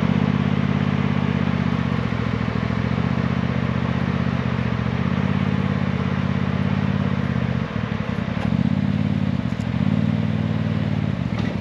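Polaris side-by-side's engine running at low, steady revs as the machine backs off a rock under throttle, with two short revs up and back down in the last few seconds.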